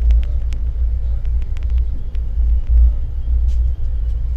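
Passenger train running, heard from inside the coach: a steady low rumble with quick clicks and rattles from the carriage, thickest in the first two seconds.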